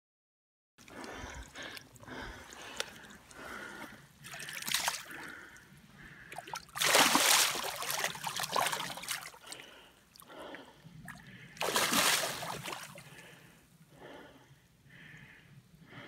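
A pike splashing in shallow ditch water as it swims off. There are several splashes, the loudest about seven seconds in and again about twelve seconds in.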